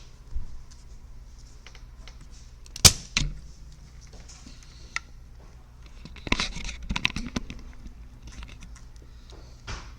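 Sharp clicks and small taps of metal tools and parts handled on a workbench while a capacitor is desoldered from a TV power board, over a steady low hum. The loudest click comes about three seconds in, and a cluster of lighter clicks and rustling follows a few seconds later.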